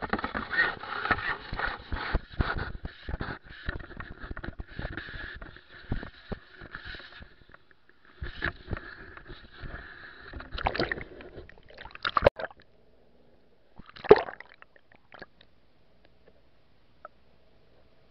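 Seawater splashing and sloshing over an action camera as it is lowered into the sea, with many small clicks and a few sharp knocks. After about fifteen seconds it goes almost quiet once the camera is underwater.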